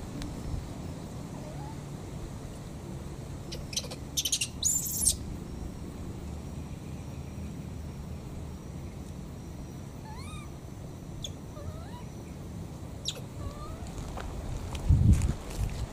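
Baby monkeys giving short, rising squeaky calls, with a brief shrill burst a few seconds in, over a steady low rumble. A low thump sounds near the end.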